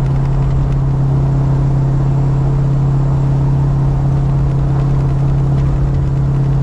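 Holden Commodore engine running at a steady cruise with an even low drone and road rumble underneath, the motor being run in.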